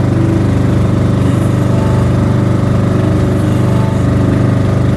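Small outrigger boat's engine running steadily, a loud, even low drone.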